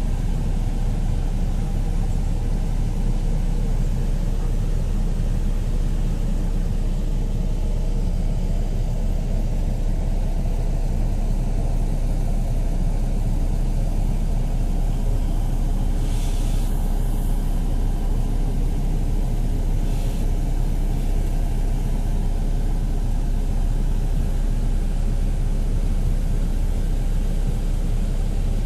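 Steady low rumble of a sleeper bus running, heard inside the cabin, with two short hisses a little past halfway.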